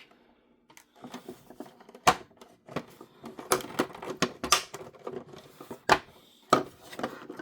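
Hard plastic toy car and a small screwdriver being handled while screws are worked out: irregular sharp clicks and taps, with louder knocks about two seconds in and again near the end.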